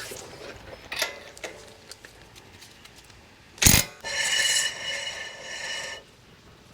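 A loud knock of a tool about three and a half seconds in, then a ratchet running steadily for about two seconds.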